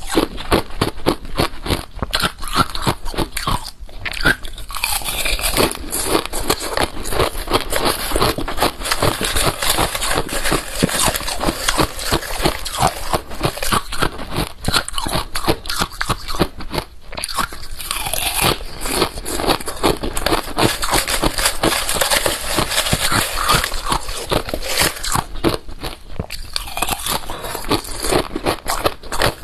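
Close-up crunching and chewing of hard ice frozen in a balloon, a dense, steady run of crisp bites and crunches.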